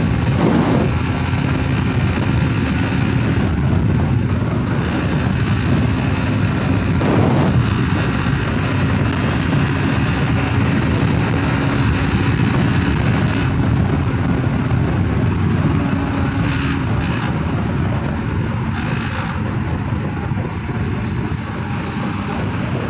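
Bajaj Pulsar NS200's single-cylinder engine running steadily at highway speed, with wind rushing over the microphone. The steady engine hum sits under the wind noise.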